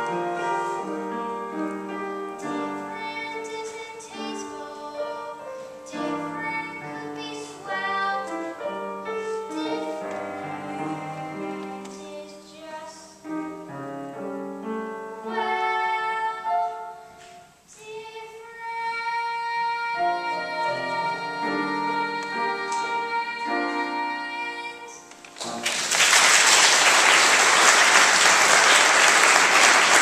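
A boy singing a solo song with piano accompaniment. The song ends about 25 seconds in and the audience breaks into applause, louder than the song.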